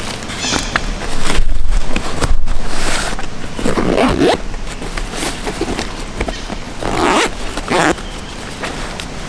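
Zippers on a nylon Sabra Gear Partner Pack being pulled open, with two long zips about four and seven seconds in. Handling rustle of a plastic bag comes near the start.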